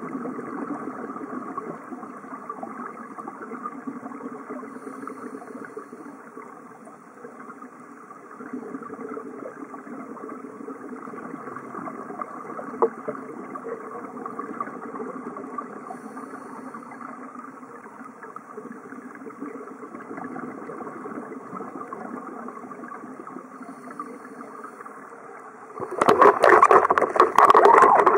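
Steady drone of a boat engine heard through the water. About two seconds before the end it gives way suddenly to a much louder rush of churning, splashing water full of crackling bubbles at the surface.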